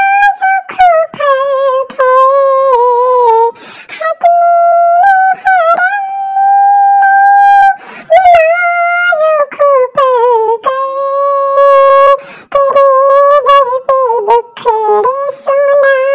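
A single high-pitched voice singing a naat melody unaccompanied, holding long notes and sliding and wavering between them, with short breathy consonant sounds between phrases.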